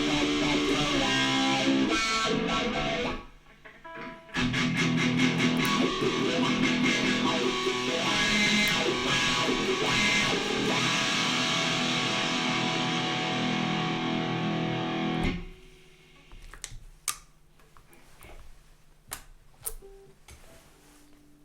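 Electric guitar played through a Cry Baby wah pedal and a Boss DS-1 distortion pedal: two passages of loud distorted playing with a short break about 3 seconds in. The playing stops about 15 seconds in, leaving a quiet stretch with a few sharp clicks.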